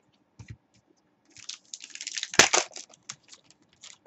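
Trading cards and a foil card-pack wrapper being handled: two soft knocks, then a spell of crinkling and rustling about a second and a half in with one sharp snap in the middle, then a few light clicks.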